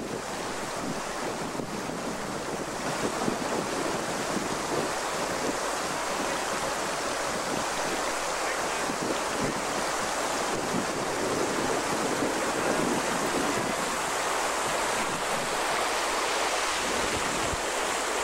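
River rapids rushing over rocks: a steady wash of whitewater, with wind on the microphone.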